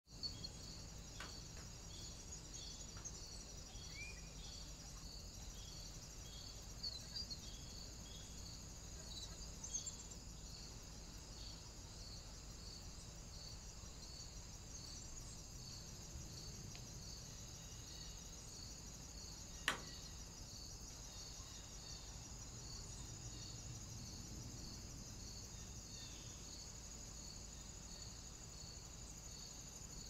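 Steady high-pitched insect chirring, with a regular pulse about once a second over a continuous trill, heard through a trail camera's microphone and sped up to double speed. A few brief chirps come in the first third, and one sharp click comes about two-thirds through.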